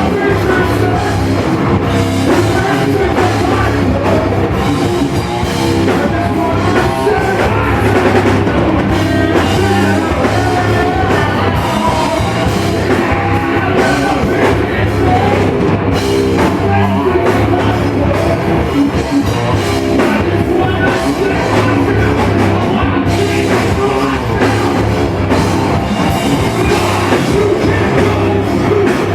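Loud rock music played by a band with a drum kit and guitar, and a voice singing over it, going without a break.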